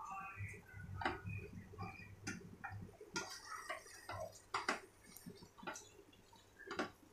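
Spatula clicking and scraping against a nonstick pot as cooked rice is stirred and tossed, in soft irregular knocks.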